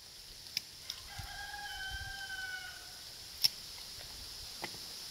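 A rooster crowing once, a single drawn-out call of under two seconds starting about a second in. Sharp clicks come before and after it, the loudest about three and a half seconds in.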